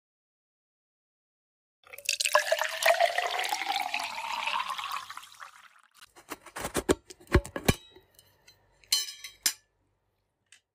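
Milk poured into a stainless steel mug, with the pitch rising as the mug fills, for about three and a half seconds. A few sharp clicks and knocks follow.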